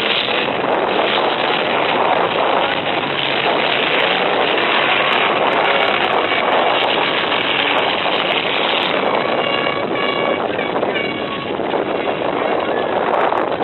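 Full-size derby trucks' engines running hard together, a loud, steady din. About ten seconds in, a short pitched tone sounds several times in quick succession.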